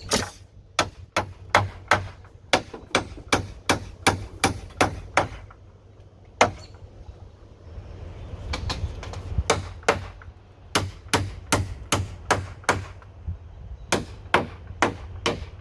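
Nails being driven into wooden deck railing boards: a rapid run of sharp strikes, about two to three a second, that pauses for a few seconds around the middle and then resumes.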